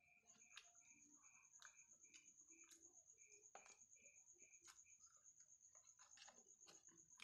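Near silence: soft clicks of chewing and of fingers picking food from a styrofoam box, over faint, steady, rapid high-pitched chirping of night insects.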